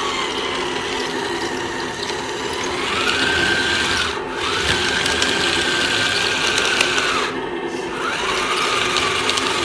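Small radio-controlled toy tank's electric drive motors and gearboxes whining as it drives. The whine rises in pitch about three seconds in, holds, and falls back about seven seconds in, cutting out briefly twice as the tank stops and restarts.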